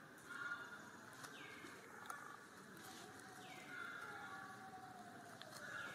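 Faint animal calls: short calls that sweep down in pitch, repeated about every two seconds, with a longer slowly falling call in the middle, over quiet forest background hiss.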